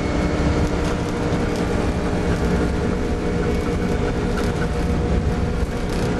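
Airbus A300 jet engines at takeoff power heard from inside the cockpit: a loud, steady noise with a deep rumble and a constant hum.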